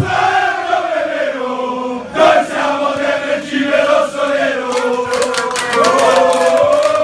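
A roomful of men chanting a football supporters' chant together in unison. Rhythmic hand clapping joins in for the last couple of seconds.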